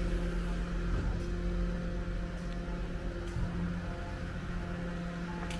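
A steady low mechanical rumble and hum, with a few faint ticks.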